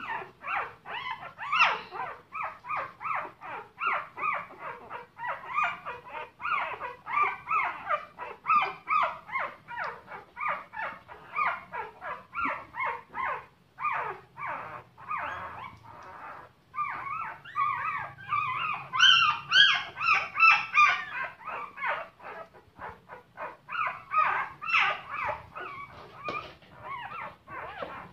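Newborn puppies crying: a steady string of short, pitched whimpering cries, about two or three a second, which grow louder and higher for a couple of seconds about two-thirds of the way through.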